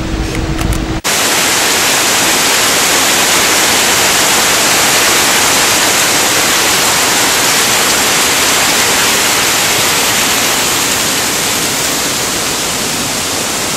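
Steady, even rushing of a waterfall, starting abruptly about a second in. Before that, a brief low rumble of wind with a steady hum.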